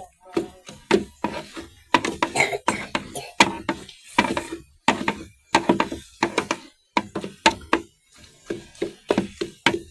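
Praise-song music: a steady knocking beat of about two strikes a second, with some singing between the strikes.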